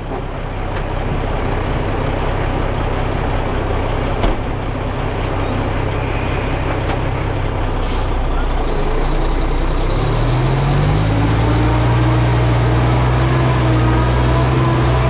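Diesel engine of heavy earthmoving equipment running steadily under load, speeding up about ten seconds in and holding the higher speed. A single knock sounds about four seconds in.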